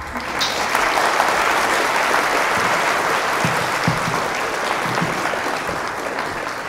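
Dense, steady applause with no single claps standing out, easing off a little toward the end.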